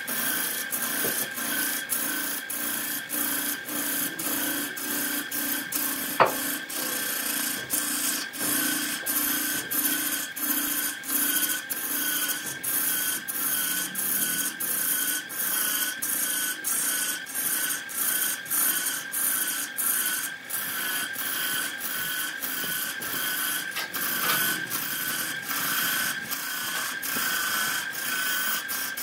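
Wood lathe running while a long-handled gouge cuts into a spinning redwood block: a steady scraping of the cut with a steady whine, pulsing about twice a second. One sharp click about six seconds in.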